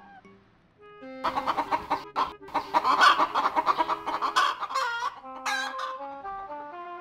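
Chickens clucking and squawking in a loud, dense flurry that starts about a second in and lasts about four seconds, followed by music of short, stepping notes.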